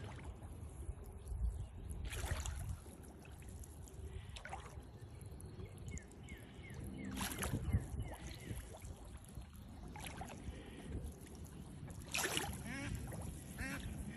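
A duck bathing in a pond, splashing the water several times, over a steady low rumble of wind on the microphone. Short runs of quick high calls come twice, the second near the end.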